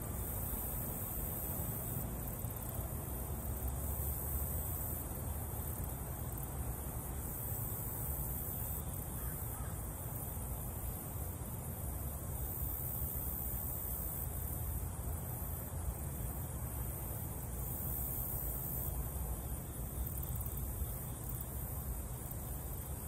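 Outdoor ambience beside a creek: a steady high-pitched hiss with a low, even rumble beneath it, and no distinct single sounds standing out.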